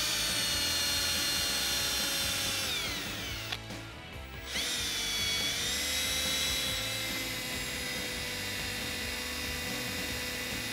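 Milwaukee M18 cordless drill whining steadily as its bit mills out the TPO plastic of a car's front bumper cover. About three seconds in the motor winds down and stops briefly, then spins back up about a second later and runs on steadily.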